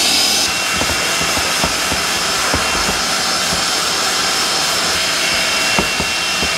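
Shop vacuum running steadily with a whine, pulling air through a hose attached to a hand sanding block as the block is rubbed over a wood board, with a few light knocks.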